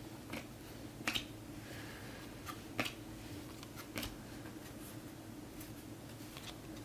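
2024 Topps Chrome Football trading cards being handled and flipped through: about half a dozen short, sharp clicks spread over several seconds, over a faint steady low hum.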